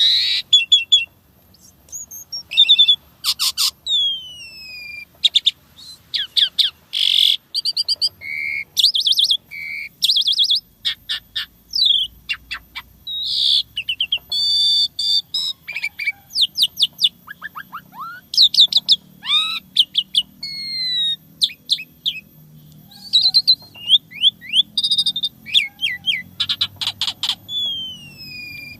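Asian pied starling (jalak suren) in full song: a dense, varied run of sharp chirps, rapid trills, whistles and downward-gliding notes, one after another with hardly a pause.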